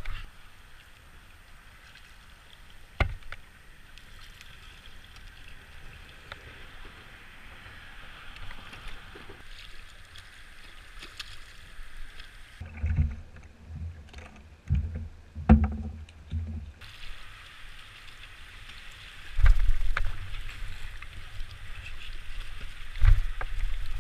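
Choppy water lapping and splashing against a kayak hull, with scattered knocks and several low thumps, the loudest two near the end.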